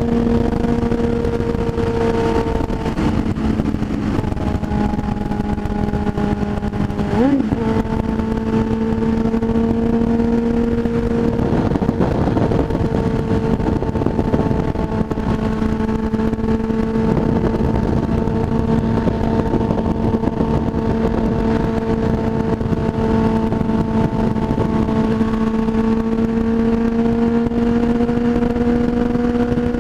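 Motorcycle engine running at a steady highway cruising speed, with wind noise over the microphone. Engine speed dips about three seconds in and picks back up about seven seconds in, then holds steady.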